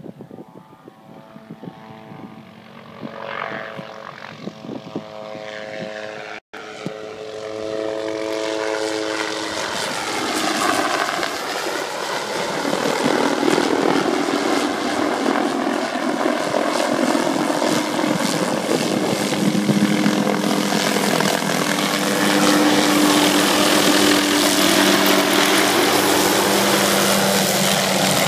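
Light helicopter approaching, its rotor and engine growing louder over the first dozen seconds, with a whine that drops in pitch about ten seconds in as it passes close. Then steady loud rotor noise as it hovers low.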